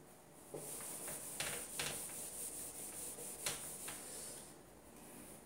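Sheets of paper rustling and rubbing with several sharp crackles as a written page is changed for a blank one. The noise dies away about four and a half seconds in.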